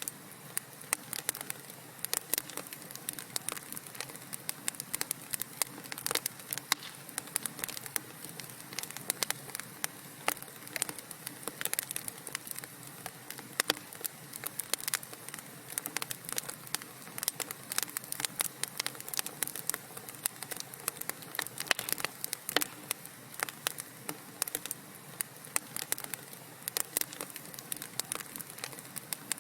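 Wood fire crackling in a fireplace: dense, irregular snaps and pops over a soft steady hiss.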